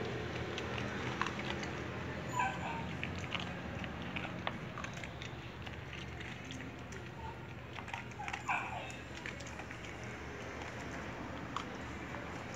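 Two dogs eating dry kibble from a plastic tray: scattered crunching and clicking of kibble against the tray throughout, with two louder short sounds a couple of seconds in and about two-thirds of the way through.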